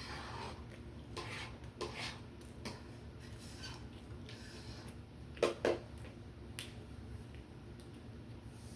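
Eating at a meal: scattered clicks and short scrapes of cutlery against a plate, with two sharper clicks close together about five and a half seconds in.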